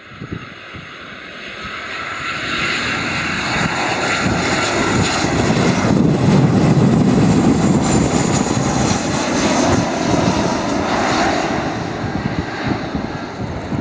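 Boeing 737-800's CFM56-7B jet engines at approach power as the airliner flies low overhead on final approach. The noise builds to its loudest about six seconds in, with a high fan whine that dips in pitch as it passes, then eases off.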